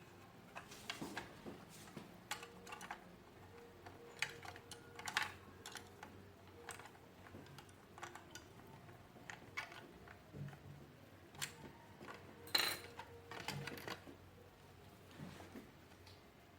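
Irregular light clicks and taps of vacuum cleaner parts being handled and fitted together during assembly, with one sharper knock about twelve seconds in.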